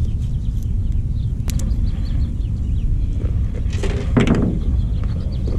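Steady low outdoor rumble, with a sharp click about one and a half seconds in and a brief rustle near four seconds as fishing tackle is handled on a truck tailgate.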